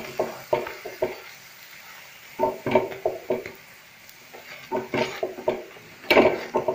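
Flat metal spatula pressing and knocking a stuffed paratha against a hot tava, in about four short clusters of quick clacks with quieter gaps between them.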